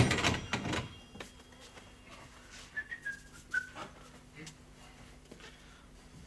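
A short clatter of knocks at the start, then a person whistling three short notes that step slightly down in pitch, about halfway through. A faint steady hum runs underneath.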